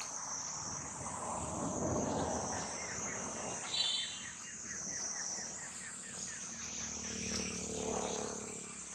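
Steady high-pitched drone of an insect chorus, with a brief high chirp about four seconds in.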